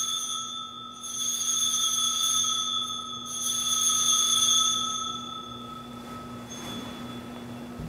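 Altar bell rung at the elevation of the chalice: a clear, high ring struck again about a second in and about three seconds in, the last ring dying away after about six seconds.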